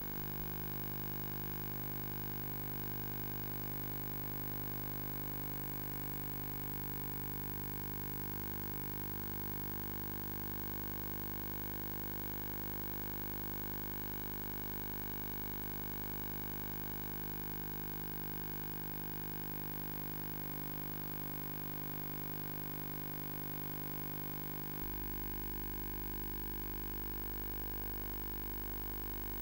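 Steady electrical hum with hiss and no other sound, its low part shifting slightly about 25 seconds in.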